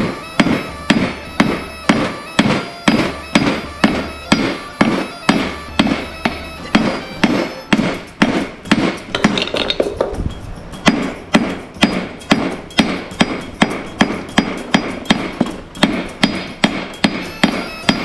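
Blacksmith's hand hammer striking hot steel on an anvil in a steady rhythm, a little over two blows a second, each blow ringing briefly. The ends of a forged belt buckle are being flattened and fanned out.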